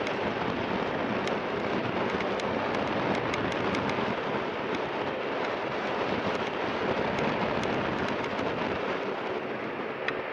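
Steady rushing noise of jet engines at an airport apron, with faint scattered ticks throughout.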